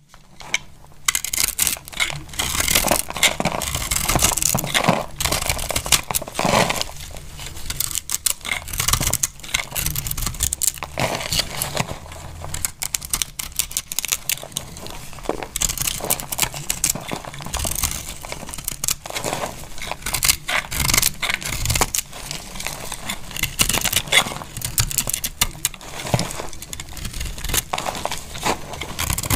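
A bar of dry soap being cut with a knife: steady crisp crunching and scraping as pieces crack and crumble off.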